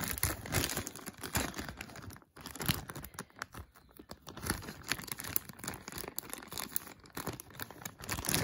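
Clear plastic bag crinkling and rustling as it is handled, a run of irregular small crackles with a short lull about two seconds in.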